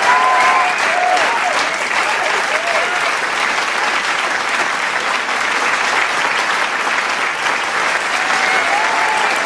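Large crowd applauding steadily with dense clapping, with cheers and whoops rising over it near the start and again near the end.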